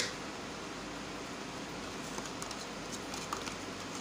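Steady hiss from the stovetop under a pan of simmering milk, with one sharp clink right at the start as a ladle touches the metal pan and a few light clicks in the second half.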